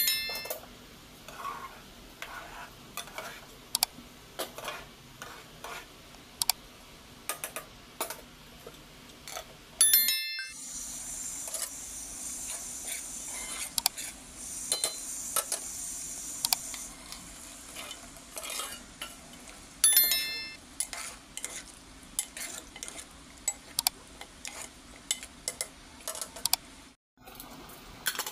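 Metal spoon clinking and scraping against an aluminium cooking pot, with masala sizzling in hot oil for several seconds in the middle. A short chime sounds about every ten seconds.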